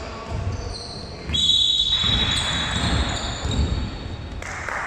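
Basketball game play in a gym: a ball bouncing on the court with sneakers squeaking, the loudest squeak about a second and a half in.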